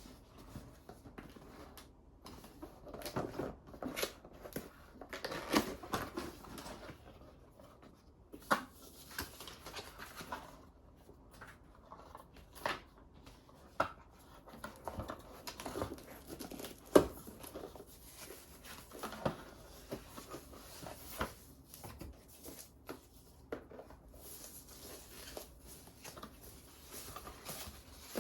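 Typing on a custom keyboard fitted with silent switches: keystrokes in irregular runs with short pauses, some single strokes louder than the rest, the loudest about seventeen seconds in.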